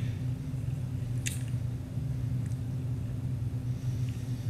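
Book pages rustling briefly about a second in, with a fainter rustle a little later, as the book is leafed through, over a steady low hum.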